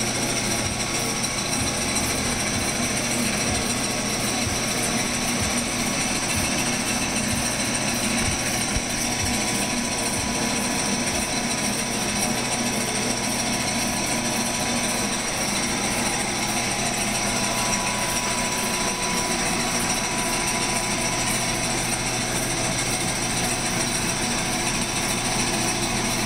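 Workshop machinery running steadily: a continuous mechanical clatter with a steady hum and whine.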